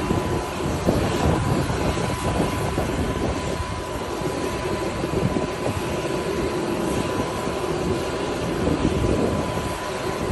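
Jet aircraft noise: a steady rushing roar with a constant high whine, with irregular low rumbling from wind on the microphone.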